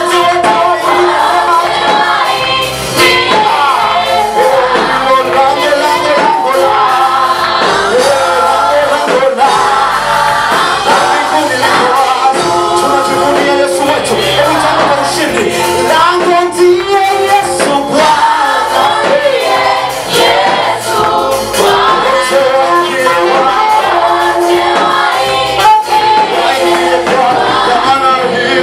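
A choir singing a gospel praise song with musical accompaniment, the music continuous throughout.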